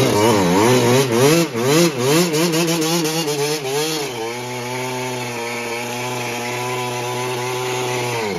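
Two-stroke Yamaha YZ dirt bike engine being revved in quick up-and-down blips for about four seconds, then held at a steady speed.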